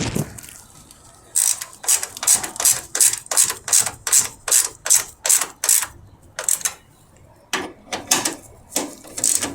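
Hand ratchet wrench tightening the 10 mm nut on a car battery's hold-down bracket. It goes in quick, even back-and-forth ratcheting strokes, about three a second, from about a second in. After about six seconds they slow to a few separate strokes.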